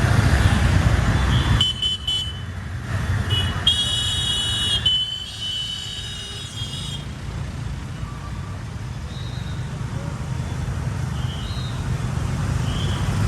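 Road vehicle running with steady low road and traffic noise. A few high-pitched horn-like tones sound between about two and seven seconds in.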